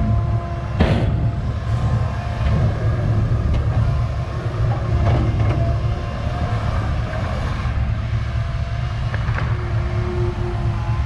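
Komatsu excavator's diesel engine running with a steady low rumble, with a sharp metallic clank about a second in and a few lighter knocks later.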